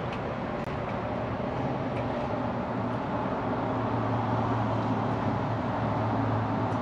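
A 1977 Kohler one-piece lowboy toilet flushing: water running steadily into the bowl and tank with a low hum underneath, growing slightly louder toward the end.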